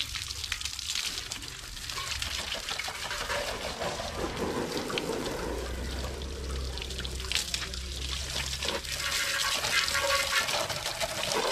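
Water running and splashing steadily as a motorcycle is washed, with many small spatters over a low hum.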